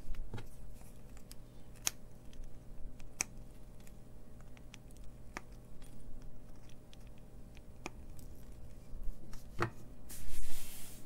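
Sharp single clicks every second or two as the wire leads of freshly soldered capacitors are snipped with side cutters and the small circuit board is handled. Near the end comes a short burst of noise, louder than the clicks.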